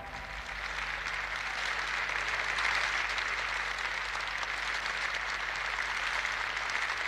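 Audience applauding: dense, even clapping that builds over the first couple of seconds and then holds steady.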